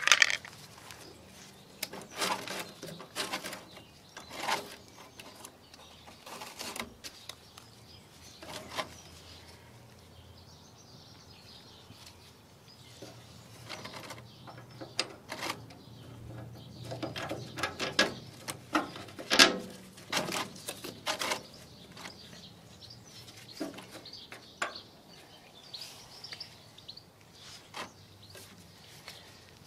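Irregular clicks, taps and knocks of small metal parts being handled as bolts are fitted by hand to a grass collector's brush driveshaft, with birds chirping faintly in the background.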